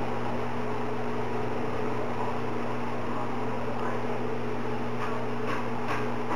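A steady machine hum over a hiss, with a few light ticks about five to six seconds in.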